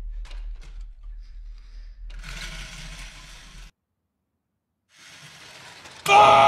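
Horror film sound design: a low steady rumble with a few faint ticks and a soft hiss, then a second of dead silence. About six seconds in, a sudden loud jump-scare burst hits.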